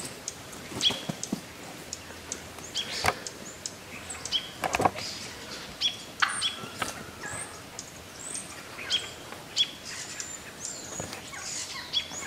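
A flock of wild turkeys calling: many short, high chirping calls scattered throughout. A shot turkey flaps on the ground, giving a few sharp wing thuds, the loudest about three and five seconds in.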